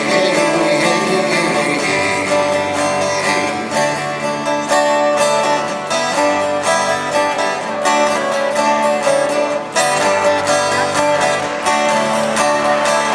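Acoustic guitar strumming an instrumental passage, with steady chords and a bass line.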